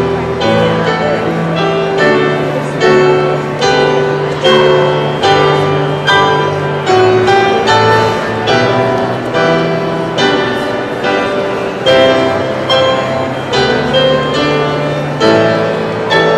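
Piano music: a steady melody of single notes over held bass notes.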